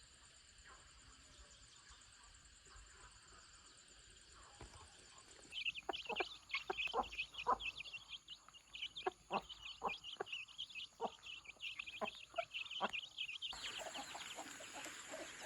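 Chickens clucking in quick short calls, starting about five seconds in and running on for several seconds, over a steady high chirring in the background.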